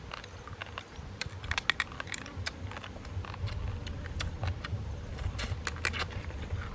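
Boiled crab shells cracking and crunching as they are broken open by hand and bitten: an irregular run of sharp clicks and snaps over a low steady rumble.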